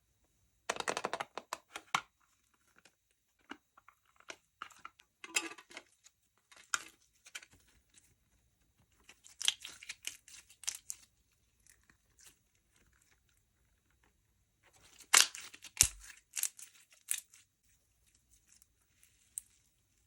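Slime-making handling sounds: irregular bursts of crackling and tearing in several clusters a few seconds apart, loudest about three quarters of the way through, with a brief low thump there.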